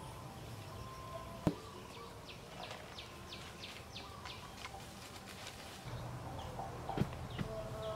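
Two sharp knocks as green bamboo poles are handled, one about a second and a half in and one near the end, with a bird giving a quick run of short falling chirps in between.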